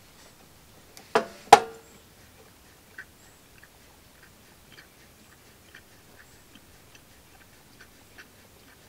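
Two sharp knocks about a second in, then faint irregular ticking as the primer bulb on a small Briggs & Stratton lawnmower engine is pressed over and over; the engine is not running.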